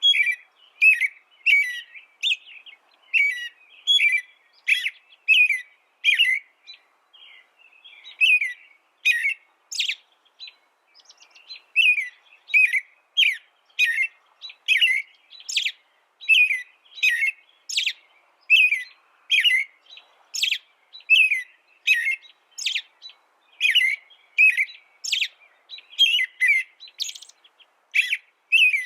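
A small bird chirping over and over, short high chirps at about two a second with brief pauses now and then.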